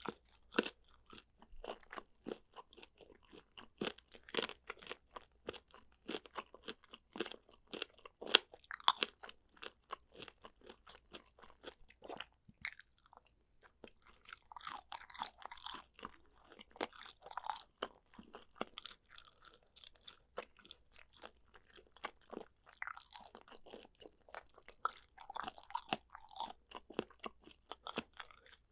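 A person chewing a meal of boneless chicken feet and pork skin close to the microphone: dense, irregular crunchy, sticky chewing clicks and mouth smacks, with a brief lull about halfway through.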